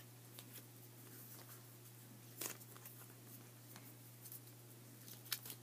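Near silence: a steady low hum of room tone, with a few faint rustles and taps as items are handled in a box. The clearest tap comes about two and a half seconds in.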